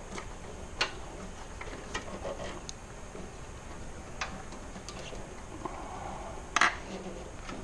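Scattered light clicks and taps of a charger cable and a wire fishing hook being worked through a motorcycle's frame by hand, with a sharper knock about six and a half seconds in.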